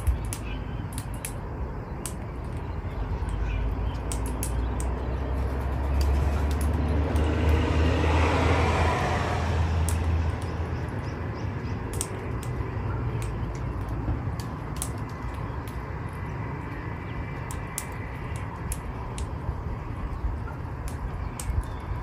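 A road vehicle passing by: a low rumble swells from a few seconds in, is loudest around the middle of the passage, and fades away, over a steady outdoor background with scattered faint sharp clicks.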